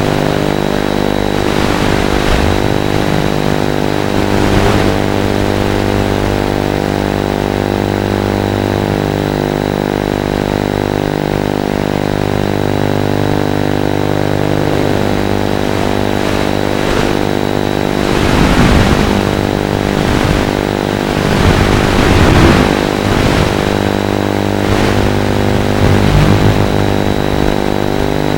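FPV quadcopter buzzing steadily, as picked up on the analog video link's audio. It swells several times in the second half.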